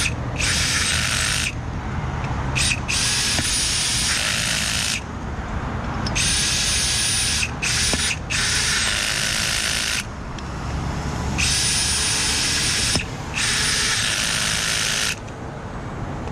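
A power drill running in short bursts of one to two seconds, about five times, with a steady high whine. It is fastening the hardware on a rebuilt Hunter ICV irrigation valve.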